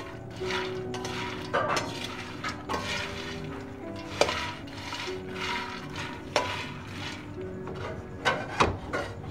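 A metal spatula scrapes and stirs makhana (puffed lotus seeds) around a dry aluminium pot as they roast. It makes a rustling, scraping stroke about every second, with a few sharper knocks of the spatula on the pot, about four seconds in and twice near the end. Soft background music runs underneath.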